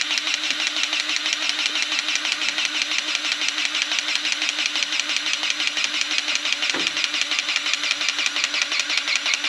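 Takeuchi skid steer's diesel engine running steadily at idle with a fast, even clatter; a short falling tone cuts across it about seven seconds in.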